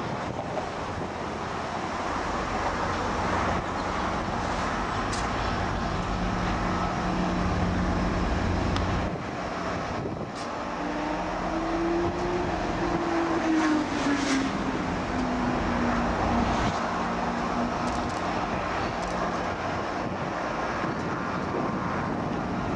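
Steady rumble of traffic and engines with a low engine hum, and a tone that slowly rises and then falls in pitch midway through.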